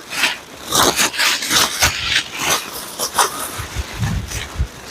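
Mylar tube tent crinkling and rustling in irregular bursts as it is pulled out and unfolded by hand.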